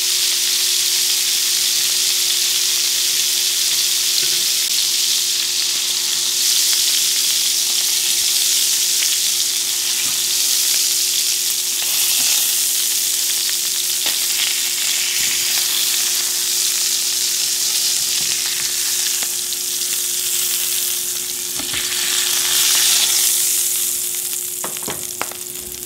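Beef burger patties sizzling in hot rendered beef fat in a titanium-coated stainless steel frying pan, a steady frying hiss. A spatula scrapes and clicks against the pan a few times as the patties are lifted out, and the sizzle eases a little near the end.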